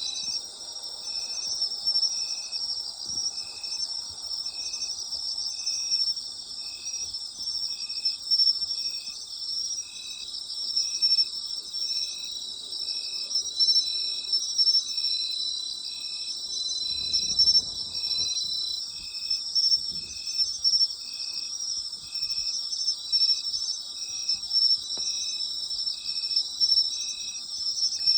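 Night chorus of autumn insects: dense, continuous high trilling, with one insect chirping in a steady rhythm about once a second. A brief low rustle comes about two thirds of the way in.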